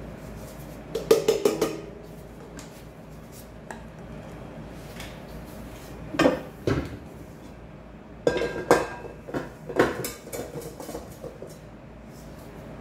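Clinks and knocks of kitchenware against a stainless steel mixing bowl, in three clusters: about a second in, around six seconds, and a longer run from about eight to ten and a half seconds.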